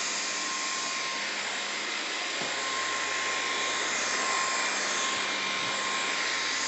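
Dreametech R10 cordless stick vacuum running steadily on its medium Eco setting: an even rushing hiss with a thin, steady high-pitched motor whine.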